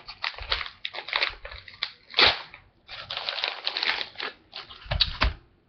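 A paper mailing envelope being torn open and handled: repeated crinkling and ripping, with one sharp tear about two seconds in and a couple of low thumps near the end.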